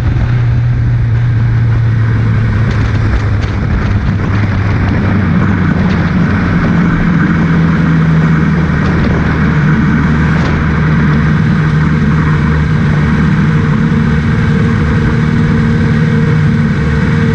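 Williams FW29 Formula 1 car's engine running at low revs as the car rolls slowly, heard from the cockpit. The engine note drops a little about six seconds in and then holds steady.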